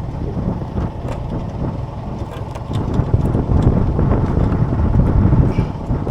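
Wind buffeting the microphone, a rough low rumble that grows louder about three seconds in, with a few faint clicks over it.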